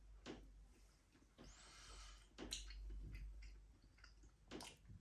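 Faint chewing of a mouthful of creamy sausage pasta, with a few soft mouth clicks and a breath out between about one and two and a half seconds in.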